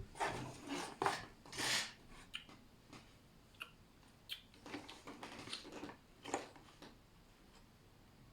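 Small plastic kit parts being handled and fitted together: a run of clicks and rattles in the first two seconds, then scattered light clicks and short rustles.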